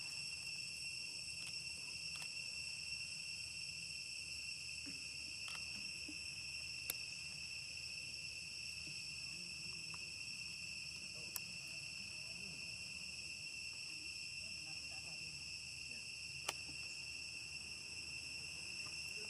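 Steady high-pitched insect chorus, with a few faint sharp clicks.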